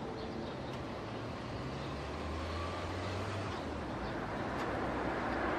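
Car engine running as a car drives slowly up a city street, over a steady background of traffic noise; the sound grows a little louder near the end.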